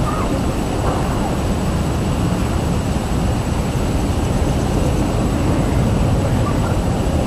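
Electric RC helicopter heard from the ground a few hundred metres off: a steady drone under a heavy, even rumble, with a thin steady high whine.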